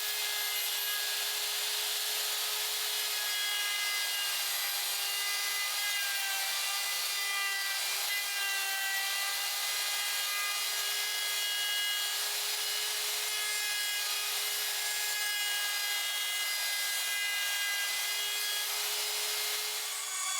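A tool rubbing or rasping steadily on wood without pause, with several held tones sounding over it that shift in pitch every few seconds.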